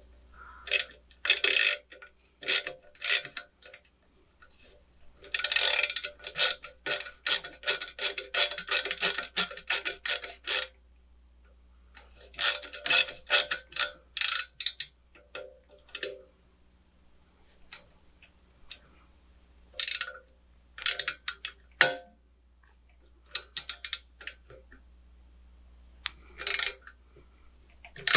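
Hand ratchet wrench clicking as it tightens the nut on a V-band clamp holding a wastegate to an exhaust header. The clicks come in several runs with pauses between them, the longest lasting about five seconds a fifth of the way in.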